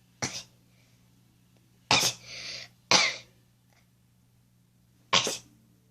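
Four short, sharp sneezes, the second trailing off in a breathy rush, set off by a cotton swab tickling the inside of the nostril.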